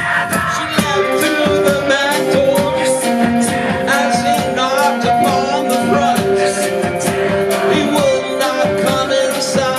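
Live band playing loudly: upright bass, drums, guitar and tambourine keeping a steady beat under held chords, with singing into the microphones.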